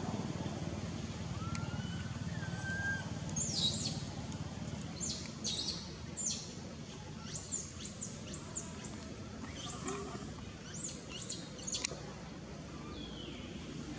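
A bird calling in a rapid series of short, high, down-slurred chirps, over steady low outdoor background noise.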